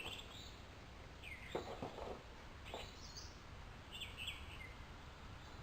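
Faint, scattered bird chirps over a steady low background noise.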